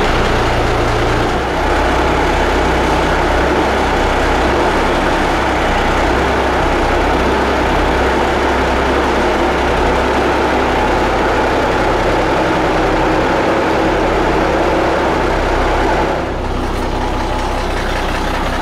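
Caterpillar diesel engine of a Peterbilt 359 truck idling steadily after being started with fresh coolant. The sound drops in level about sixteen seconds in.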